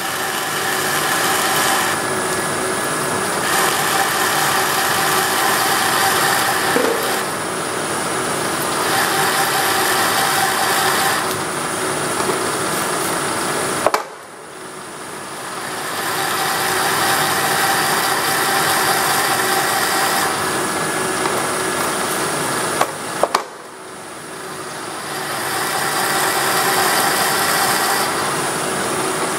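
Vertical milling machine running, its spindle turning an end mill that plunges into a paper-covered plastic blank, with the cutting sound coming and going as the tool is fed in and backed out. Twice the sound drops away sharply and builds back up over a couple of seconds.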